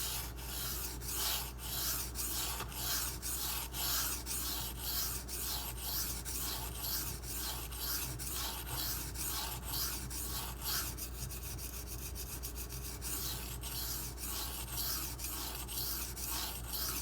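Steel knife blade (M390) being stroked back and forth across the 1000-grit side of a Bernal Cutlery Takarazukushi 1k/4k combo whetstone, a steady rasping scrape at about two to three strokes a second. Light pressure from the weight of the hands alone, with the stone's coarse, aggressive surface cutting the bevel toward the apex.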